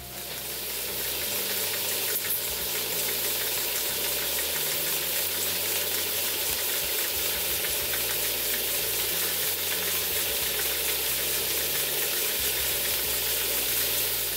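Two model steam engines, a Stuart S50 and a Stuart 10H, running together on live steam, the S50 driven by the 10H's exhaust. Steady hissing of steam with a fast, even beat running through it.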